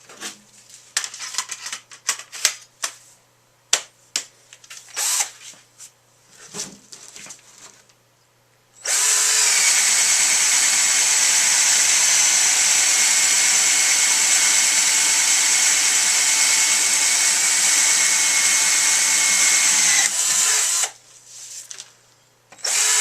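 Cordless drill boring into a hollow juniper log: scattered knocks and clicks for the first nine seconds or so, then the drill runs steadily at full speed for about eleven seconds and stops, with one short burst near the end.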